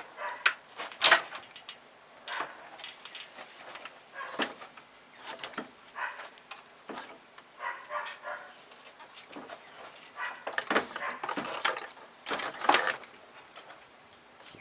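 Scattered metal clanks and knocks of a VW Mk2 steel subframe being shifted on a floor jack and nudged into line with the car body's bolt holes. The loudest knock comes about a second in, and a cluster follows near the end.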